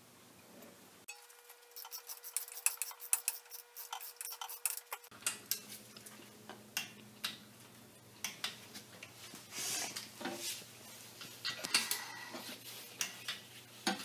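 Hand tools clicking and clinking on the brake caliper as its mounting bolts are put in and tightened. A quick run of clicks in the first few seconds, then scattered metallic clinks.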